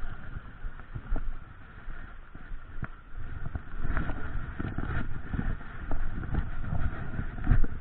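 Footsteps and wading in a small stream: irregular thumps and knocks, with a steady rush of running water underneath.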